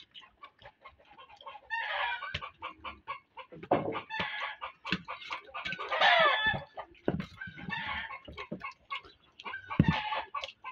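Chickens clucking and a rooster crowing, in repeated calls a second or two apart, with small clicks and taps in between.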